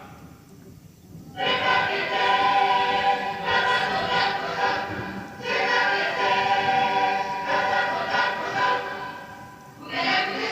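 Choir singing long held notes in phrases of about two seconds each, starting about a second and a half in, as music from a light-and-sound show's soundtrack.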